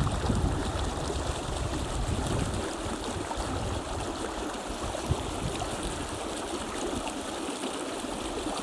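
Sierra mountain creek rushing steadily over rocks. A low rumble of wind on the microphone fades out in the first couple of seconds.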